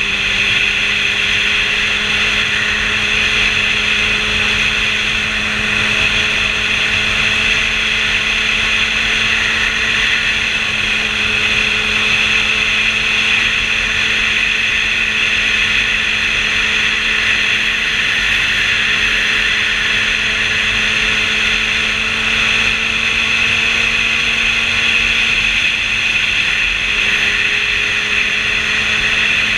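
Sport motorcycle cruising at a steady speed: an even engine note that creeps slowly upward under a constant rush of wind and road noise.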